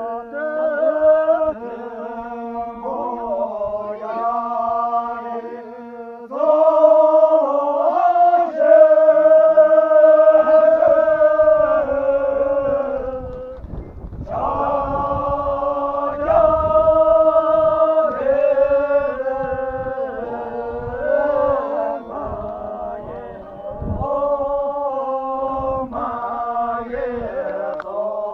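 Voices chanting in long, held notes that step up and down in pitch, with only short breaks.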